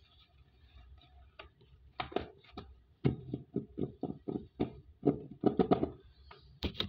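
Hands handling a paper note on a cardboard box: a quick run of short taps and paper rustles, starting about two seconds in and going on to the end.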